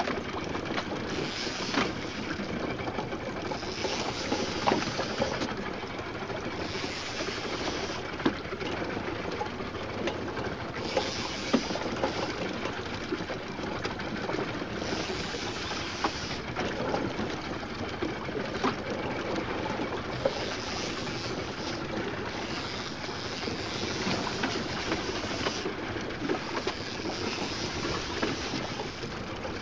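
A conventional saltwater fishing reel being cranked in spurts while a fish is fought, its gears whirring for a second or two at a time every few seconds, over a steady hiss of boat and sea noise.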